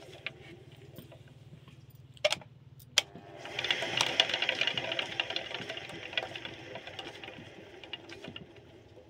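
Motorised potter's wheel running with a steady low hum under a five-tier clay diya being thrown. Two sharp clicks come a couple of seconds in, then a louder scraping, rustling noise for a few seconds in the middle.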